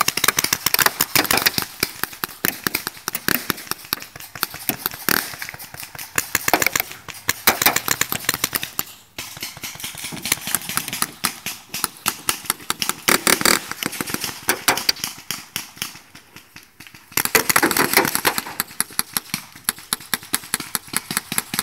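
Paintball markers firing in rapid, irregular volleys of sharp pops, several guns going at once. The shooting slackens for a moment about sixteen seconds in, then picks up again.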